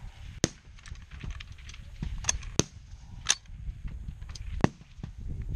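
Rifle shots cracking along a firing line at irregular intervals, about six sharp reports in a few seconds, over a steady low rumble.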